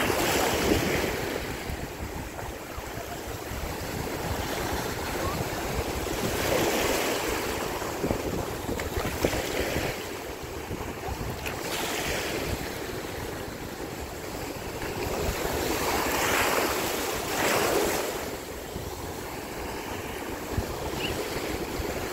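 Ocean surf: small waves breaking and washing through shallow water, swelling and easing every few seconds, with wind buffeting the microphone.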